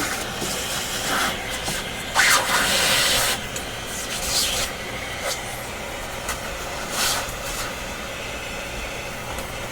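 Vacuum cleaner running steadily as its nozzle sucks dust off an old radio chassis, with louder rushes of air about two seconds in and again around seven seconds as the nozzle works over the parts.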